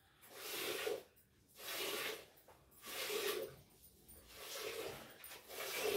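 Streams of milk squirting into a steel milking pail as a cow is hand-milked, a hissing squirt about once a second, five times.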